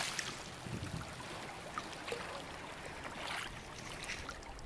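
Shallow water sloshing and trickling with soft splashes among floating water hyacinth as someone wades in.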